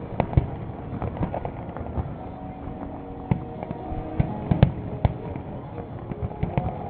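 Fireworks bursting overhead: irregular booms and bangs at a few per second, the loudest a little over four and a half seconds in.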